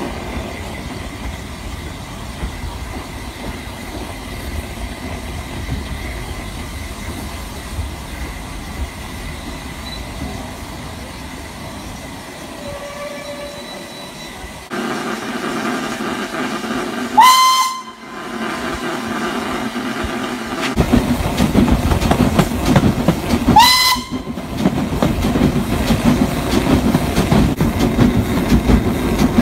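SR S15 class 4-6-0 steam locomotive No. 847 hauling its train, heard from just behind the engine: a steady running noise that grows louder in two steps. Two short whistle blasts, each rising quickly in pitch and then holding, sound about six seconds apart in the second half.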